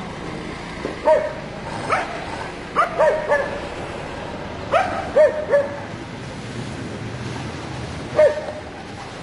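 Large dogs in a tug-of-war over a chew bone, giving short high whining yelps in scattered bursts, about nine in all, with clusters around three and five seconds in and a last one near the end.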